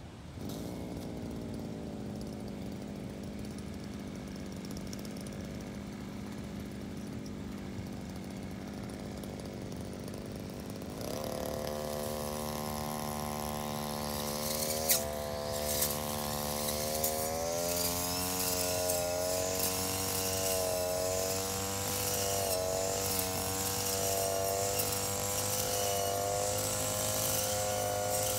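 Engine brush cutter idling steadily, then throttled up about eleven seconds in and running at cutting speed, its pitch wavering as the blade cuts through tall grass, with a few sharp clicks around the middle.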